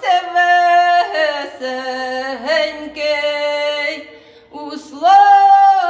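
Unaccompanied singing of a Ukrainian wedding ritual song by women, in long drawn-out held notes that bend at the syllable changes. A short break for breath comes about four seconds in, then the next phrase starts.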